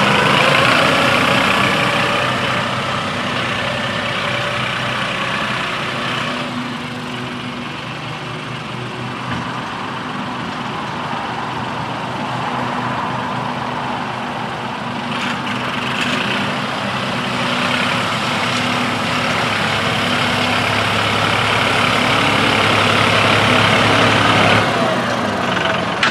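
Massey Ferguson 2607 tractor's diesel engine running as the tractor drives across soft mud. The sound grows fainter midway, louder again later, then drops off suddenly near the end.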